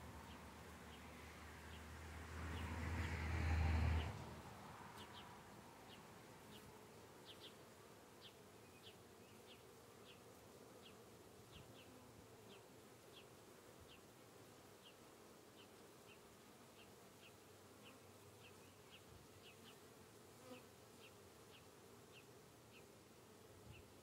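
Faint buzzing of honeybees flying around the entrance of a nuc box. A low rumble swells over the first few seconds and cuts off about four seconds in, and faint high ticks repeat a few times a second.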